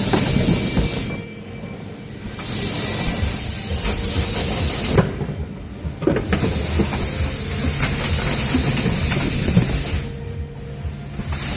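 Pneumatic case erector running on compressed air. A steady air hiss cuts out briefly about every four and a half seconds as the machine cycles, over a low mechanical clatter.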